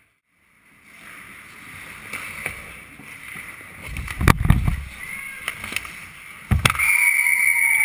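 Ice hockey play heard from a camera fixed to the goal net: skates scraping on the ice and sticks clattering, with two heavy thumps at the net, about four and six and a half seconds in. The sound starts after a brief silence.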